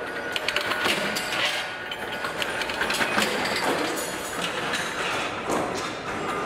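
Flywheel power press punching round blanks out of a steel plate: repeated sharp metallic clanks over a steady machine clatter.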